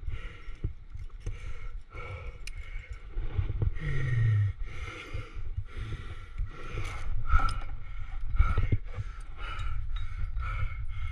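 Climbing gear (cams and carabiners on a harness rack) clinking and scraping against sandstone while a climber jams up a crack, breathing in puffs about once a second, with a short low grunt falling in pitch about four seconds in.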